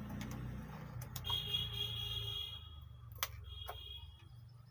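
A low electrical hum that fades out a little past halfway, with a few sharp clicks and two short, high electronic beep-tones.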